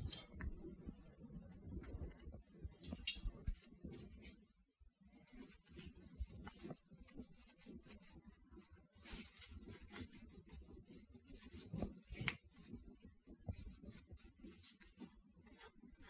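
Paper towel rubbing and scrubbing over a steel pistol slide as it is wiped down, in irregular scratchy strokes. A few light clicks and knocks of the metal part being handled, the sharpest at the very start and another about twelve seconds in.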